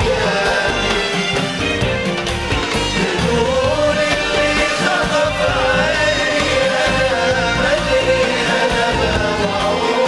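Gulf Arabic song played live by an orchestra, with large frame drums, a darbuka and a tambourine keeping a steady beat under sustained melody lines and singing.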